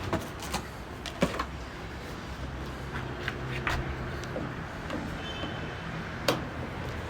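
A dozen or so scattered sharp clicks and knocks, irregularly spaced, over a steady low hum.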